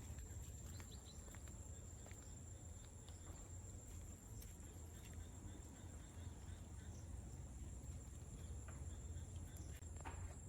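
Faint outdoor ambience: a steady high-pitched insect drone, over a low rumble with a few small scattered clicks.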